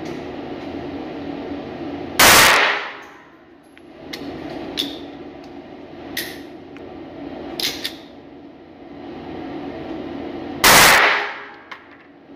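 Two pistol shots from a small handgun in an indoor range lane, about eight and a half seconds apart, each a sharp crack with a short echoing tail. A few faint clicks and pops fall between them, over a steady low hum.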